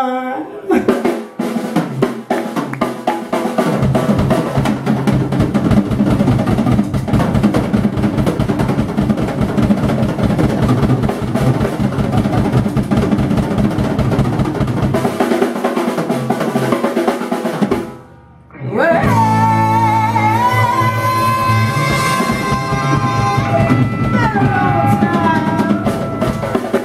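Live rock and roll band playing, with a Gretsch drum kit busy and up front over electric bass and guitar. The music cuts out suddenly for about a second two-thirds of the way through, then comes back in with long held, wavering notes over the band.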